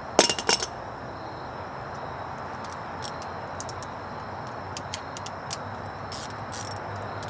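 Small metal parts being handled: a quick cluster of sharp clicks just after the start, then scattered light clicks and taps. This is the sound of fitting chrome emblem letters and pressing speed nuts onto their studs.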